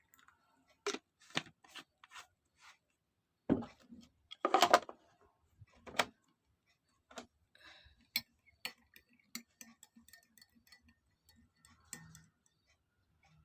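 Light clicks and knocks of kitchen utensils against glassware while a herbal drink is brewed, with a brief louder clatter about four and a half seconds in.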